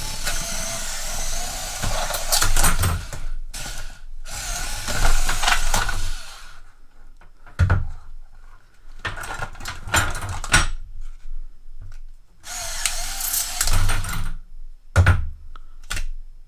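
Gearwrench ratcheting combination wrench ratcheting in fast runs of clicks as it is worked back and forth: a long rasping run for the first six seconds or so, then several shorter bursts.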